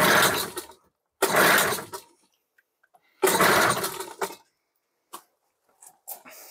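1999 Tohatsu 3.5 hp two-stroke outboard being pull-started three times. Each pull gives about a second of the engine trying to catch before it dies away, so it will not keep running. The owner suspects the old fuel left in its tank.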